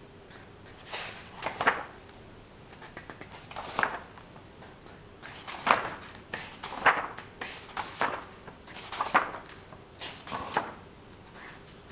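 Pages of a thick paperback book being turned by hand: a string of short paper swishes and rustles, several in quick succession.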